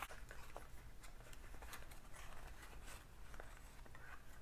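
Faint rustling, scraping and small clicks of a small cardboard gift box and its packaging being handled to take out a fragrance bottle.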